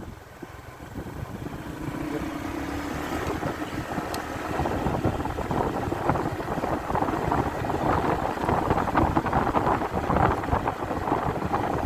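Motorcycle engine and wind buffeting the microphone while riding, growing steadily louder.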